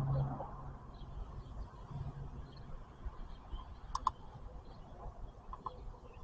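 A few faint, sharp clicks and taps from a handheld automotive battery tester being hooked up and its buttons pressed, over a low steady hum.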